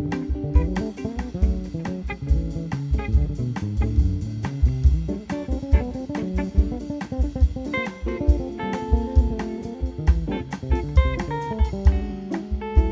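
Instrumental jazz played live by a small band: guitar lead over bass and a drum kit keeping a steady beat.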